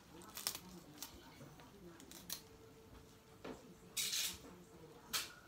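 Scissors snipping through a raw quail carcass: about six sharp cuts, the loudest and longest one about four seconds in.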